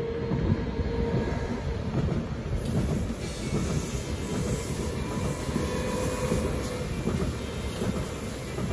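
Two coupled RABe 524 electric multiple units running past on the line, with the steady rolling noise of their wheels on the rails.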